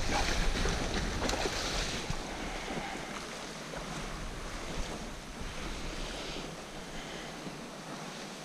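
Wind buffeting the microphone over a steady wash of small waves on a loch shore. The low wind rumble eases after about two seconds, leaving the water wash.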